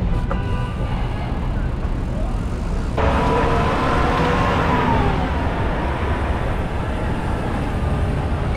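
Steady low rumble of city street traffic, heard from a moving bicycle. About three seconds in the sound changes abruptly and a vehicle engine's drone comes in, sinking slightly in pitch.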